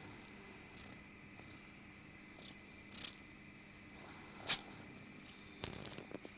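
Orange kitten purring softly. About four and a half seconds in there is a single short, sharp noise, and a few small clicks come near the end.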